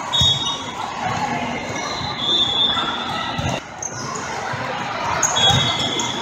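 Volleyball being hit during a rally in a large echoing indoor hall: about three dull thumps of the ball, a few seconds apart, over a steady crowd hubbub, with a few brief high squeaks.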